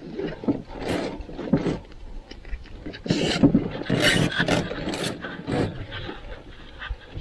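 Hands adjusting a strap-on canoe seat back: nylon webbing and plastic buckles rubbing and scraping against the inside of a kevlar canoe hull, in an irregular run of scrapes and clicks, busiest in the middle.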